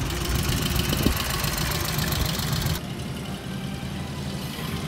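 Vintage car engines running slowly in creeping traffic, a steady low rumble. A higher hiss over it cuts off suddenly about three seconds in.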